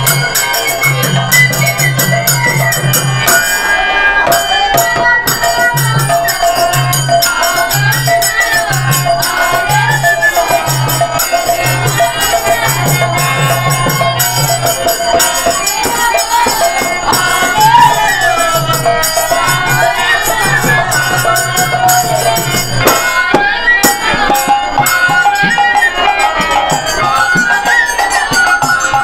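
Kirtan music: khol drums beating a rhythm under constant jingling of hand cymbals, with a wavering melody over them. The deep drum strokes drop out about three quarters of the way through.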